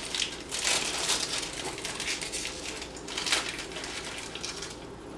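Plastic snack packet being handled and torn open, the wrapper crinkling irregularly, loudest about a second in and again near three seconds.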